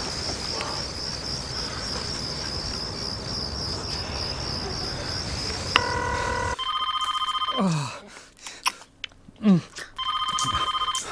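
Crickets chirping in a steady night background. About six seconds in, a click and a short beep, then a telephone ringing tone heard down the line while a call waits to be answered, twice, about three seconds apart, with short breathy sounds between the rings.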